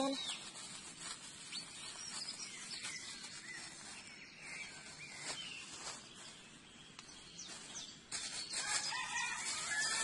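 Wild birds calling, with short chirps throughout. From about eight seconds in, a thin plastic bag rustles and crinkles as it is handled.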